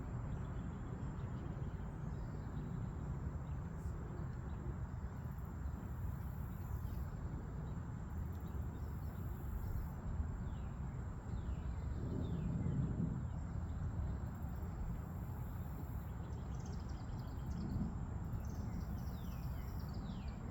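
Wind rumbling on the microphone, swelling a couple of times, with faint bird chirps in the background, a run of short descending chirps in the second half.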